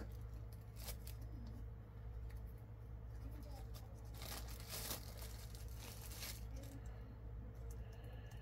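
Thin clear plastic bag crinkling and being torn open by hand, with the loudest rustling and tearing about four to six seconds in.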